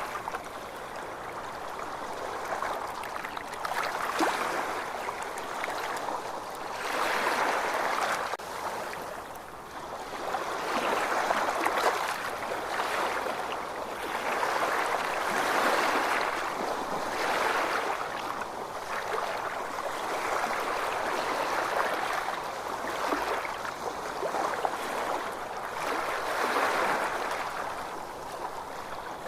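Ocean waves washing on the shore, the surf swelling and ebbing every couple of seconds.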